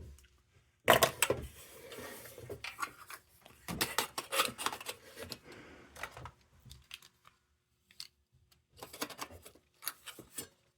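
Small sheet-metal lantern parts being handled and fitted: scattered light clicks, taps and short scrapes, with a louder clack about a second in.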